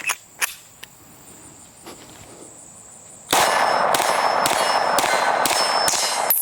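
A compensated Smith & Wesson Metal Carry Comp 9mm pistol fired in a quick string of about seven shots, roughly two a second, starting about halfway through. Before the firing, insects trill faintly and there are a few small clicks.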